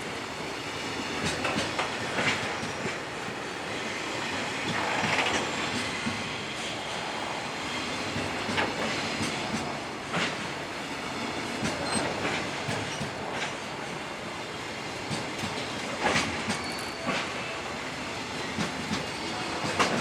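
Freight train hauled by a JR Freight EF210 electric locomotive rolling past, its wheels clattering steadily over the rail joints with irregular sharp clicks.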